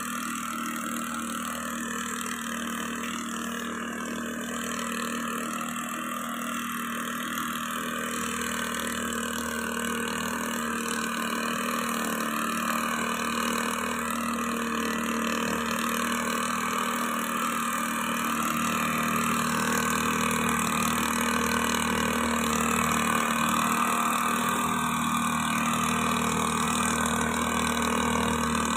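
Small two-stroke engine of a backpack power blower running steadily as it blows granular fertilizer out through its long spout over the rice. It grows gradually louder as it comes closer.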